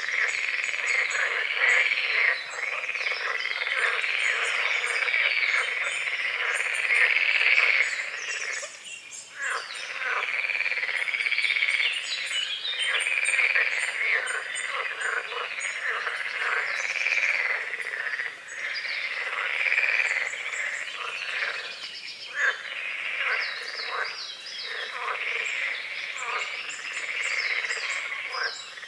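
A dense chorus of many frogs croaking continuously over a lake, with small bird chirps higher above it.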